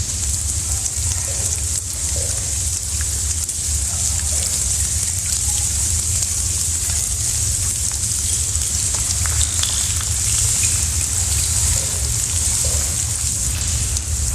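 Steady, loud hiss with a constant low hum beneath it and faint scattered ticks.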